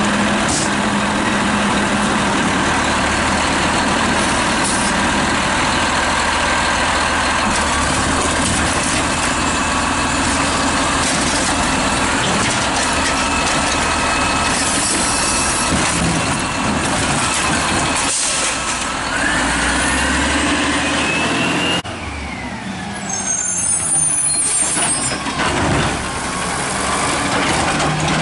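Automated side-loader garbage truck running while its hydraulic arm lifts a recycling cart over the hopper, with a steady mix of engine and hydraulic pump noise and a few knocks. About three quarters of the way through the sound drops and changes to a second side-loader, quieter, working its arm.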